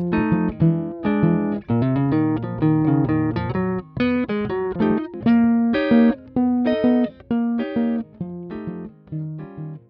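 Guitar music: a plucked melody of short, separate notes, fading out near the end.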